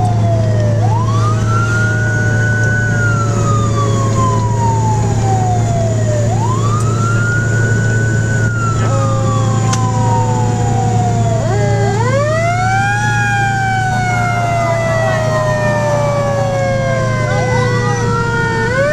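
Fire engine siren wailing, its pitch rising quickly and then falling slowly, repeating about every five to six seconds, over the steady drone of the engine heard inside the cab. A second wailing pitch overlaps it from about twelve seconds in.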